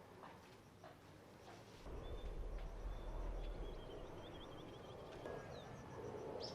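Small birds chirping, with one quick trill, and a low rumble that comes in about two seconds in.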